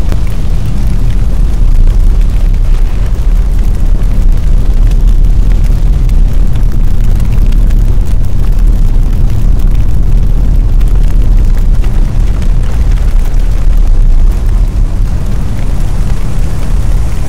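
Large fire burning: a steady deep rumble with fine crackling.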